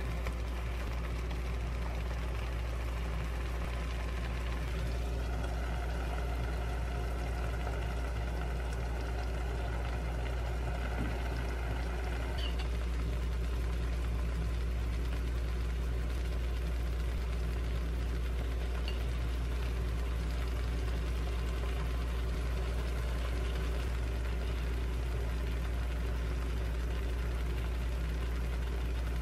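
Steady low machine hum from a running kitchen appliance beside a frying pan on the hob, with a couple of faint clicks.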